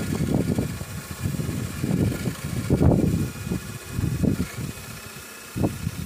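Power drill running steadily, boring a 25 mm countersink into a timber 4x2, cutting off right at the end; wind buffets the microphone in gusts.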